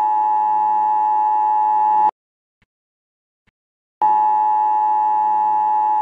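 Emergency Alert System two-tone attention signal, a steady chord near 853 and 960 Hz. It sounds twice, each time for about two seconds, with a two-second silence between the two.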